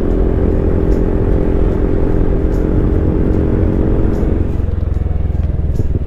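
Honda Forza 300 scooter being ridden: a steady engine tone over a low rumble, the tone fading out about four and a half seconds in.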